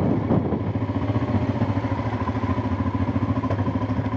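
Honda Transalp's V-twin engine running at low revs with a steady, even beat as the motorcycle rolls slowly in.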